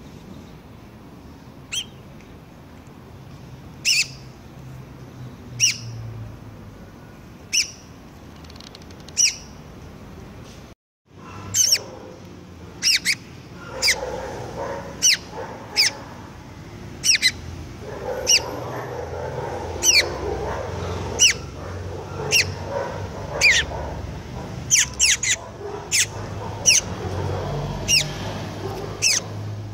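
Young shiny cowbird giving short, sharp, high call notes, each a quick downward sweep, repeated about every two seconds at first and then one or two a second.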